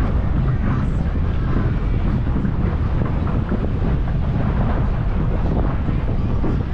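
DCB catamaran powerboat under way, its engines giving a steady low rumble under heavy wind noise on the microphone.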